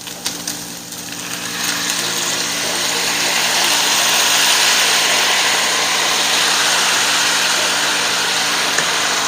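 Chicken frying in a hot pan with soy sauce just added, giving a loud, steady sizzle that builds over the first couple of seconds, over a faint steady hum.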